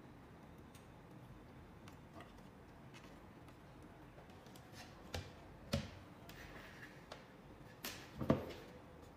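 Faint clicks and rustles of hands working wires into a ceiling speaker's spring terminals, then a few sharp knocks in the second half, the loudest near the end, as the speakers and amplifier box are handled and set down on a wooden table.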